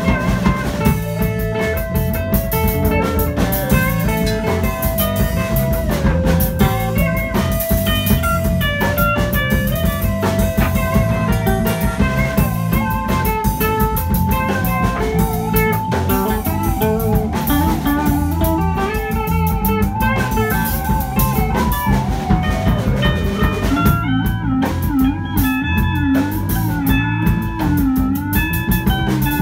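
Instrumental blues-rock music: a lead guitar plays a melody over a steady drum kit beat, with held notes that bend and waver near the end.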